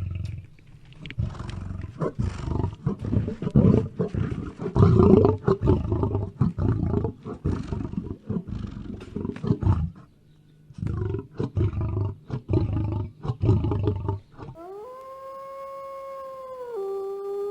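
A large predator roaring and growling in repeated rough bursts, with a short pause partway through. About fifteen seconds in, a wolf begins a long, steady howl that drops in pitch near the end.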